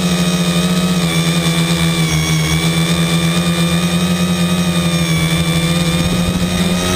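V-tail tricopter's brushless motors and propellers running in flight, heard from on board: a steady buzzing hum that shifts slightly in pitch as the throttle changes.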